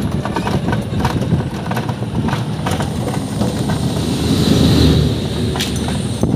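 Auto-rickshaw in motion, heard from inside: its engine running with a steady noise and the body rattling and clicking throughout, swelling a little louder about two-thirds of the way through.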